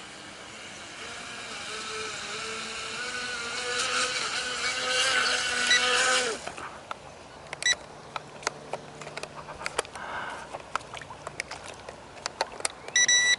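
A small model boat's motor running with a whine that climbs in pitch and grows louder, then cuts out abruptly about six seconds in as the boat stalls on the water. Scattered clicks follow, with two short electronic beeps, the second near the end.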